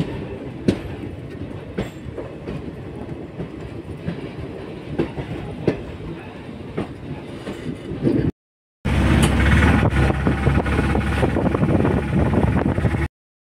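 Train running along the track, its wheels clattering over the rail joints in sharp clicks about once a second over a steady rumble. After a brief dropout about eight seconds in, the clatter comes back louder.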